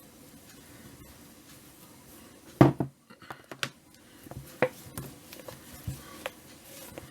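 Scattered light clicks and knocks of kitchen items being handled at a counter, with one louder knock a little before the middle.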